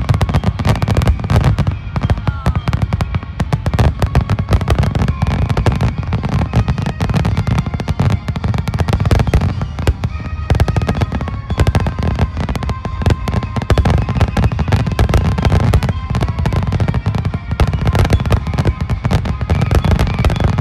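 Aerial fireworks shells bursting in a continuous rapid barrage, bang after bang with no pause between them.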